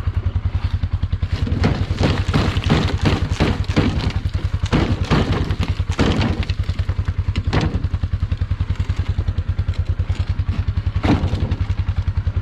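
A side-by-side's engine idling with a steady fast pulse, while pit-run gravel is scraped and spread by hand in a series of crunching strokes through the first two-thirds, then one more stroke near the end.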